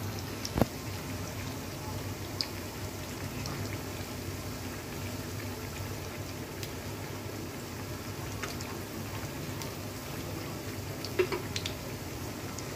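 Pakoras sizzling and bubbling as they deep-fry in hot oil in a kadai, a steady crackling hiss. A few sharp clicks cut through: a loud one about half a second in and a small cluster near the end.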